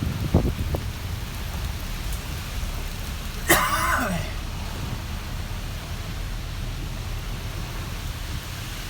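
Storm wind buffeting the microphone through an open car window: a steady low rumble. About three and a half seconds in, a brief loud sound drops sharply in pitch.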